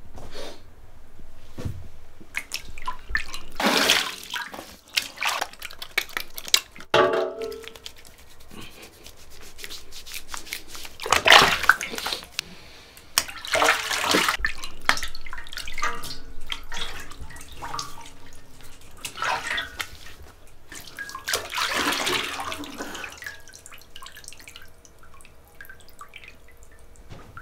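Water splashing and pouring in several short, irregular spells, as in washing at a basin, with a few knocks in between.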